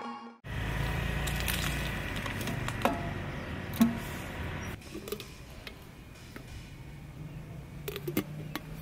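A metal powdered-milk tin and its plastic lid being handled: scattered short clicks and knocks, the sharpest about four seconds in and a few more near the end, over a steady low background noise.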